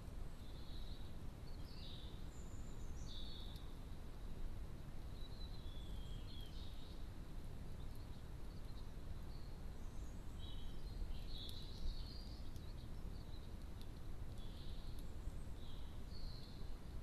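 Small songbirds give short high chirps and twittering phrases every few seconds, busiest about two-thirds of the way through, over a steady low background rumble.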